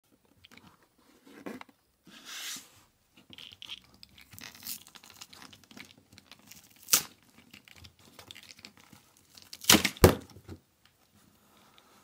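Thin cardboard carton of a Kinder Surprise egg pack being torn open by hand. Scattered rustles and scrapes, with a sharp rip about seven seconds in and two louder ones close together near ten seconds.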